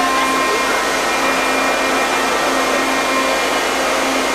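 Steady rushing noise, like blowing air, with a faint low hum that comes and goes.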